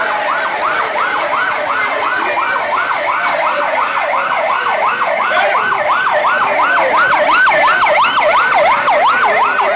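Electronic vehicle siren in fast yelp mode, sweeping up and down about three times a second and getting a little louder as it comes closer, from an escort vehicle of the presidential convoy.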